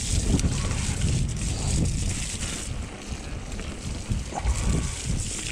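Wind buffeting the microphone of a camera on a moving mountain bike: a low rumble that rises and falls, with a steady hiss above it.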